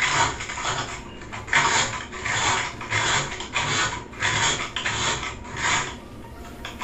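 120-grit sandpaper rubbed back and forth by hand inside a Moen shower valve body, a quick rasping stroke one to two times a second, stopping about six seconds in. The bore is being sanded clean of old rubber and grime so the new cartridge slides in easier.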